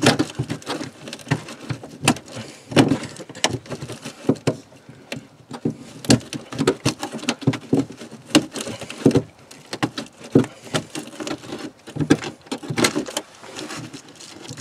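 Irregular crackling, scraping and clicking of the RV's underbelly liner and insulation as the hole around the shower drain is worked open by hand.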